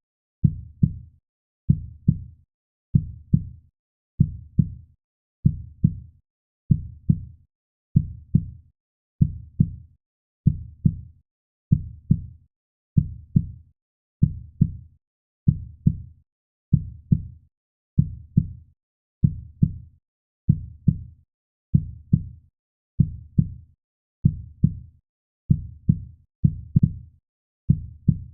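Heartbeat sound, low double thumps in a lub-dub pattern repeating steadily about every second and a quarter, with a short silence between beats.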